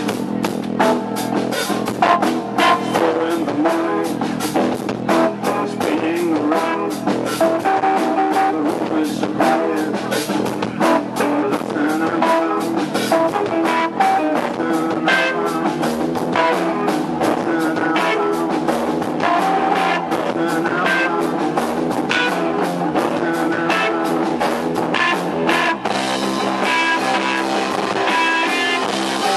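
Rock music with guitar and a drum kit keeping a steady beat; the arrangement shifts to a fuller, more sustained section near the end.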